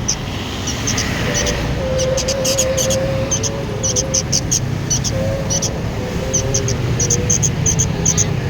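A young sooty-headed bulbul (kutilang) chick giving short, high-pitched chirps, repeated in quick irregular clusters throughout.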